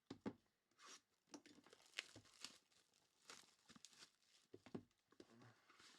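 Faint crackling and tearing of plastic shrink wrap being torn off a sealed trading card box, in irregular sharp rustles.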